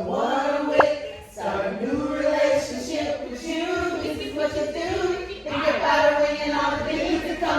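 Music with singing voices, sung notes held and gliding, with no clear beat.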